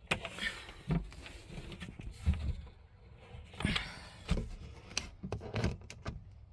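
Scattered knocks, scrapes and rubs as a fitted cover piece is pushed and settled into place, mixed with bumps from a handheld camera being moved about.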